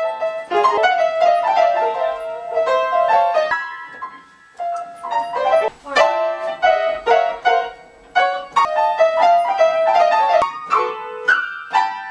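Upright piano being played: an original piece of single notes and chords, breaking off briefly twice, about four and eight seconds in.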